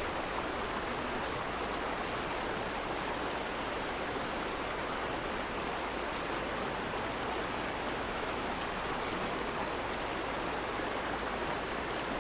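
Rocky mountain stream running over boulders and shallow riffles: a steady rush of water.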